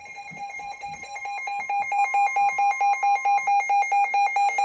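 Emergency alert attention tone: a loud electronic beeping that alternates between two pitches in rapid pulses, about five a second, growing louder over the first two seconds.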